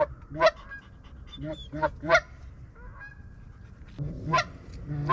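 Goose honking: a run of short, sharp honks in the first two seconds or so, a lull, then two more honks near the end.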